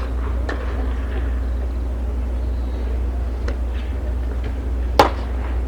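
A pitched baseball smacking into a catcher's mitt once, a sharp crack near the end, over a steady low rumble.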